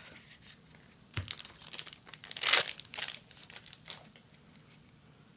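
A trading-card booster pack wrapper being torn open and crinkled: a run of short crackling rustles and tears, the loudest about two and a half seconds in.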